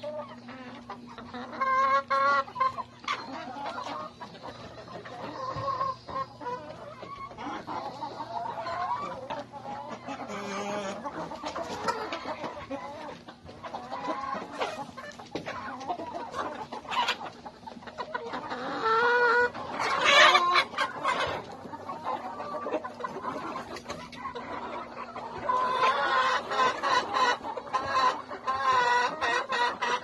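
A flock of laying hens (Rhode Island Reds, barred Plymouth Rocks and Black Australorps) clucking and squawking in many overlapping calls, loudest about two-thirds of the way through.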